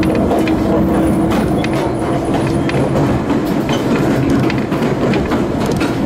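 Chichibu Railway 6000 series electric train running, heard from inside the passenger car: steady rolling noise with scattered wheel clicks over the rail joints. A low steady hum fades out about two seconds in.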